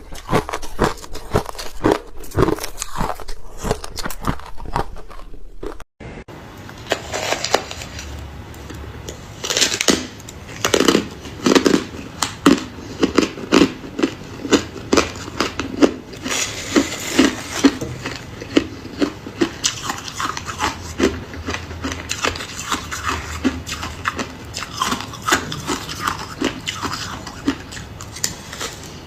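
Ice being bitten and chewed close to the microphone, a quick run of sharp crunches. There is a brief break about six seconds in, after which the crunching carries on.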